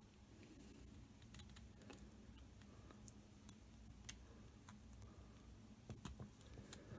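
Faint, scattered clicks and ticks of 3D-printed PLA plastic parts knocking together as a ring is fitted onto a plastic axle.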